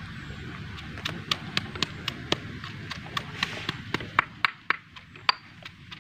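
Stone pestle knocking down into a mortar in quick, irregular strokes, roughly three a second, pounding ingredients coarsely. Wind rumbles on the microphone, easing off partway through.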